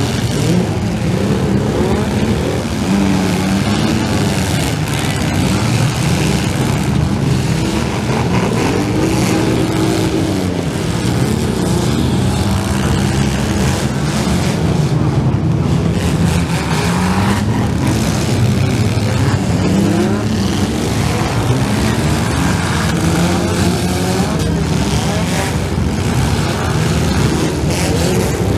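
Engines of several compact demolition derby cars revving hard at once, their pitch repeatedly rising and falling, with knocks of metal on metal as the cars collide.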